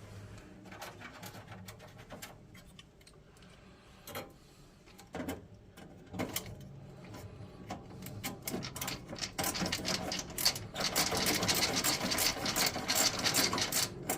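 Electric ratchet driving screws, a small motor buzz with rapid clicking, scattered at first and running near-continuously from about nine seconds in.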